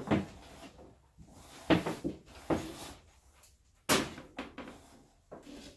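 Hand-handling noise of electrical cable being worked at a wall box and pulled across a washing machine: several separate sharp knocks with scraping and rustling between them, the loudest about two seconds in and about four seconds in.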